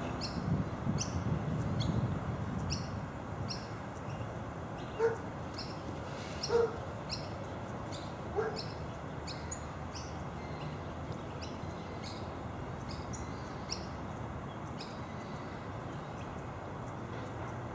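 A bird chirping over and over in short high calls, about one or two a second, growing sparser in the second half. Three louder, lower short animal calls come a few seconds in.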